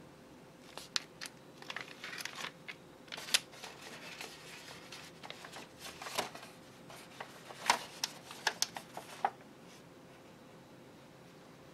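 Thin plastic packaging and paper cake liners being handled, making a string of irregular crinkles, crackles and small clicks that die away about nine seconds in.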